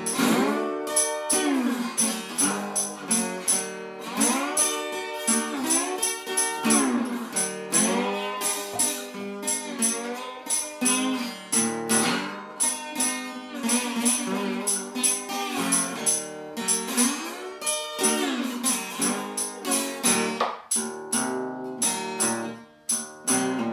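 Acoustic guitar playing a slow blues with bending notes, with a tambourine keeping time in the background.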